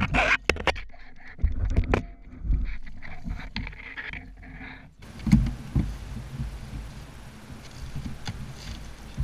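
Water splashing and sharp knocks against a plastic kayak as a red drum is lifted from the water in a landing net. About halfway through the sound changes to a steady hiss with a few dull thumps.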